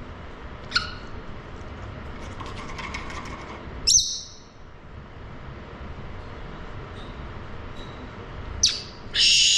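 Pet parrot giving short, sharp calls that fall in pitch, about a second in, about four seconds in and near the end, then a loud harsh squawk at the very end.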